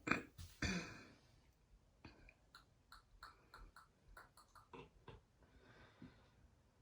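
Two light knocks, then a run of faint, sharp clicks from small metal hardware being handled while a wall mount for a curtain backdrop is screwed into the wall.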